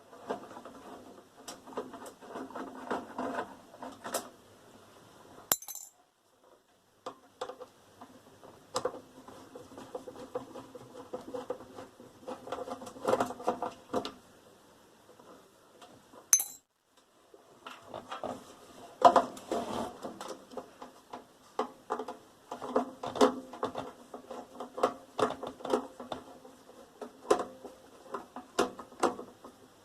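Metal clinking and clattering as tools and the sheet-metal parts of a microwave oven are handled during dismantling, in irregular bursts of clinks and knocks. It stops briefly twice, about six seconds in and again around sixteen seconds in.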